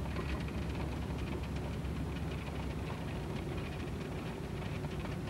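Steady engine and road noise of a car driving slowly, heard from inside the cabin.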